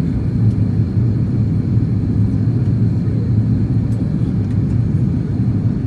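Jet airliner cabin noise heard from a window seat in flight: a steady low rumble of engines and rushing air.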